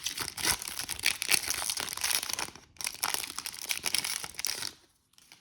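Trading card pack wrapper crinkling and tearing as it is ripped open, with a brief pause partway through, stopping shortly before the end.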